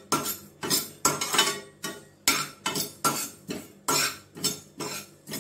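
A steel spoon scraping and clinking against a pan in quick, even strokes, about three a second, stirring coriander, cumin and fennel seeds as they dry-roast.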